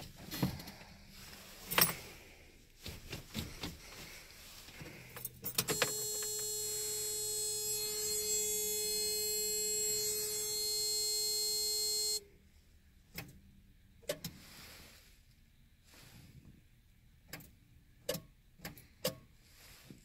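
Toyota pickup's ignition-on warning buzzer sounding steadily for about six seconds, then cutting off abruptly, between key jingles and clicks. Afterwards a handful of single sharp clicks as the key is turned to start, with no engine cranking: the sign of a failing starter.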